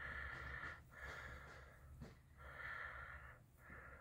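Faint, steady breathing close to the microphone, in and out, each breath lasting about a second.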